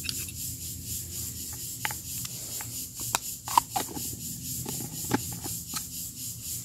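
Food packaging being handled: scattered rustles and light clicks a second or two apart. Underneath is a steady, high, pulsing chirr of insects.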